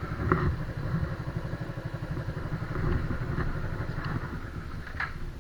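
Motorcycle engine idling with a steady, fast low pulse, and a few light clicks over it.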